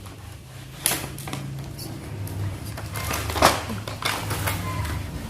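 Rustling and clicking as a toy box and its plastic toy pieces are handled, with two sharper clicks, one about a second in and one about three and a half seconds in, over a steady low hum.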